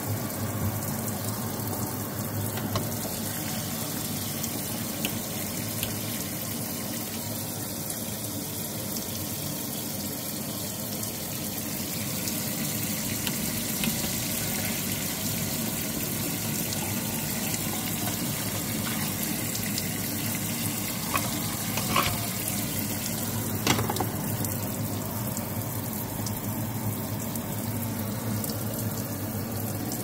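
Water from a kitchen faucet running steadily into a black stainless steel workstation sink, with two short clicks about two-thirds of the way through.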